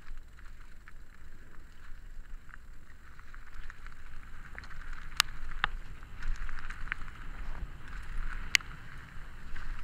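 Mountain bike riding fast down a loose gravel trail: tyres crunching and the bike rattling over stones, with frequent small clicks and a few sharp knocks, the loudest about five and eight and a half seconds in. A low wind rumble sits underneath.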